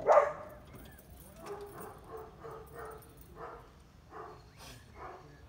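A dog barking: one loud bark just at the start, then a run of fainter, quicker barks.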